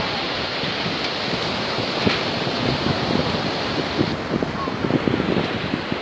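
Surf washing onto a shingle beach, with wind buffeting the microphone in irregular low gusts.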